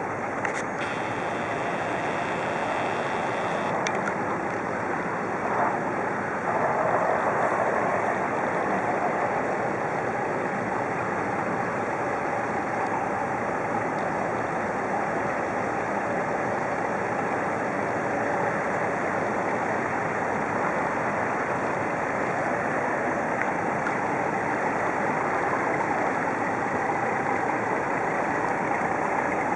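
A river towboat under way: its diesel engine running steadily along with the churning wash of its propeller, a continuous noise that grows a little louder about six seconds in.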